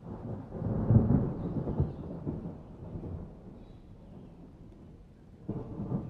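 Thunder rumbling over faint rain: it comes in suddenly, is loudest about a second in, and dies away over a few seconds. A second rumble starts near the end.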